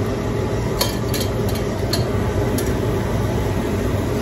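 Sweet potato slices set one by one into a stainless steel steamer basket, a handful of light clicks in the first few seconds, over the steady rush of water boiling in the pots on the stove.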